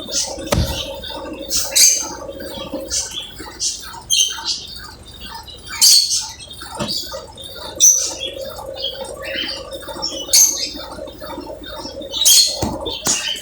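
Brastemp Ative 11 kg washing machine running its spin cycle: a steady hum, with short high squeaks or chirps every second or two.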